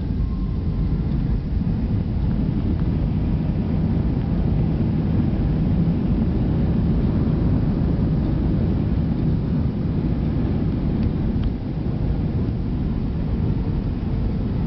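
Jet airliner heard from inside the cabin during its landing rollout: a steady, loud low rumble as the plane decelerates on the runway with its spoilers raised. It swells a little in the middle and eases slightly near the end.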